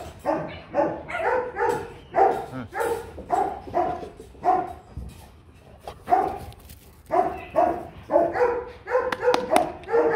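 A dog barking over and over, roughly two barks a second, with a short lull near the middle.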